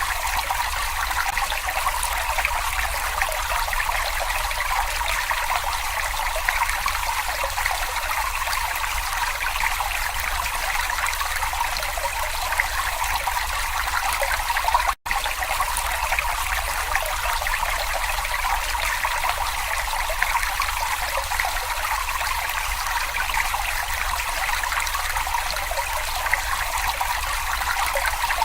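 Small brook babbling, a steady trickle of running water. It cuts out for an instant about halfway through.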